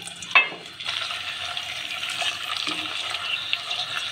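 A spoon clinks once against the pot, then sliced onions start sizzling in hot oil about a second in, a steady hiss.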